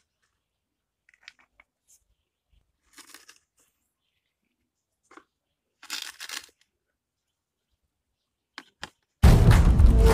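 Sea stones scraping and crunching as they are pressed into wet cement mortar in a plastic container: a few short, scattered sounds, the loudest about six seconds in. About nine seconds in, loud music starts suddenly.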